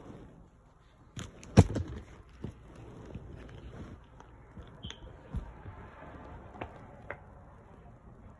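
Handling noise: scattered knocks, thumps and rustles as the recording phone is moved about, the loudest a sharp knock about one and a half seconds in.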